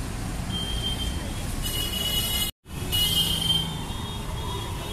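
Street traffic with motor vehicles running: a steady low rumble, with short high-pitched tones about half a second in and again around two and three seconds, and bursts of high hiss. The sound drops out briefly about two and a half seconds in.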